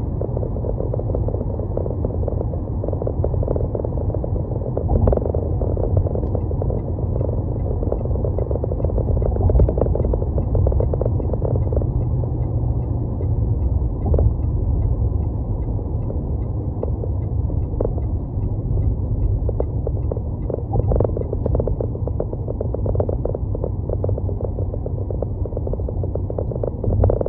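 A car driving on city roads: a steady low rumble of road and engine noise, with frequent small thumps through it.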